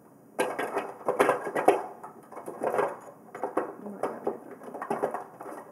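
Small plastic makeup pieces and rollers clattering and knocking as a hand rummages through a plastic toy makeup kit's drawer. The rattles are irregular and start about half a second in.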